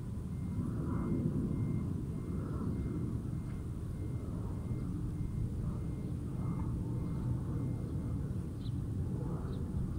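Steady low rumble of outdoor city noise, with a faint high electronic beep repeating about twice a second that stops about eight seconds in.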